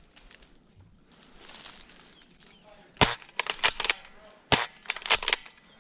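Airsoft guns firing a handful of single sharp shots at an uneven pace, starting about three seconds in after a quiet stretch.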